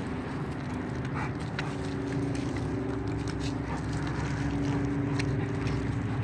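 A steady motor hum with a couple of steady pitched tones, with a few light clicks over it.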